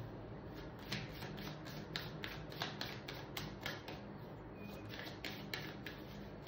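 A tarot deck being shuffled by hand: irregular light clicks and snaps of the cards, about two to three a second.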